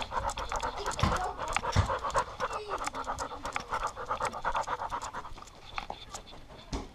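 A dog panting rapidly and evenly, heard up close through a collar-mounted camera, with two dull knocks about a second in. The panting fades out over the last second or two.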